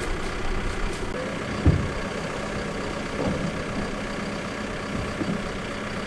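An engine idling steadily, with one short thump about a second and a half in and a few lighter knocks.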